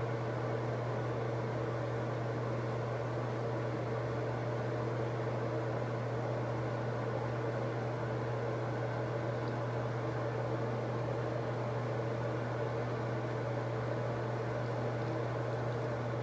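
Steady mechanical hum with an even hiss, like a running fan, unchanging throughout.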